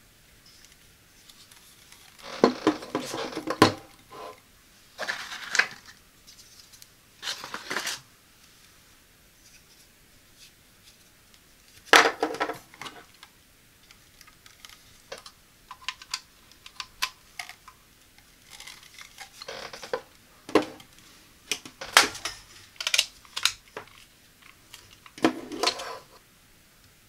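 Hands handling an LED ring light and its tripod stand: clicks, knocks and rattles in a series of short bursts, with scattered single ticks between them.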